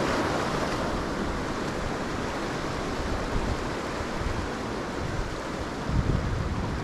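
Ocean surf washing against the jetty rocks, a steady rush, with wind buffeting the microphone and a stronger low rumble near the end.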